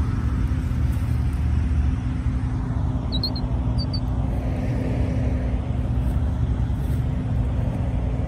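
Steady low rumble with a constant low hum underneath, and two brief high chirps about three and four seconds in.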